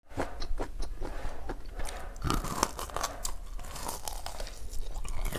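Close-miked biting, crunching and chewing of crispy fried pork, with many sharp crunches in quick succession.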